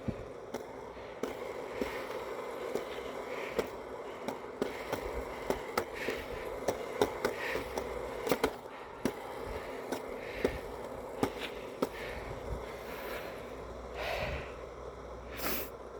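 Skateboard wheels rolling over pavement in a steady rumble, with many short clicks and knocks as the board passes over bumps and joints.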